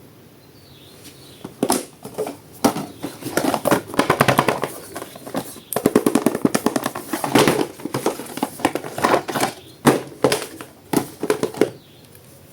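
Plastic toy packaging handled and opened by hand: rapid, irregular runs of sharp clicks and crackles. They start about a second and a half in, are densest around the middle, and stop near the end.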